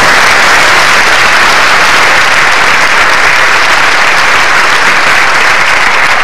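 Large audience applauding steadily, a dense sustained clapping that holds even throughout.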